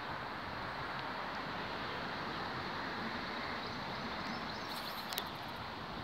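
Steady wind noise on a smartphone microphone that is covered with a piece of sponge as a makeshift wind muffler, with a few faint high ticks about five seconds in.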